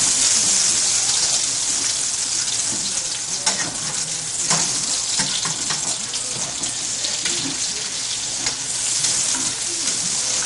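Chopped onion sizzling as it fries in meat drippings in a stainless steel skillet, with a metal utensil scraping and clicking against the pan now and then as it is stirred.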